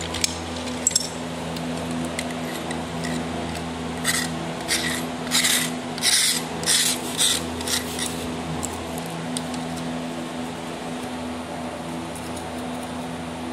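Small round metal slices clinking against each other and a metal surface as they are spread out: about a dozen sharp clinks between four and eight seconds in, over a steady low hum.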